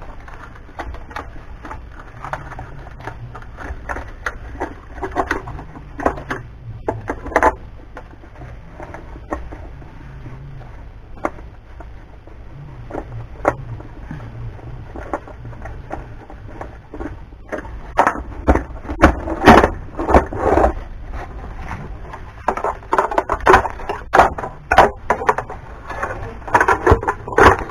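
Screwdriver and hard plastic clattering and scraping as a small air pump's plastic casing is unscrewed and pried apart. Clusters of louder knocks and rattles come in the second half.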